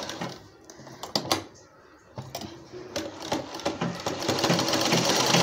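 Sewing machine stitching a strip of fabric: a few scattered clicks at first, then the stitching picks up and settles into a fast, even run from about four seconds in.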